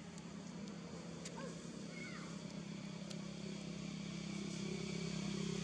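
Steady engine hum of a motor vehicle, growing gradually louder, with a few faint clicks on top.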